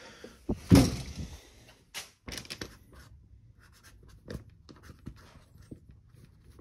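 A marker pen writing on plastic sheeting, making many short scratchy strokes, after a single loud thump a little under a second in.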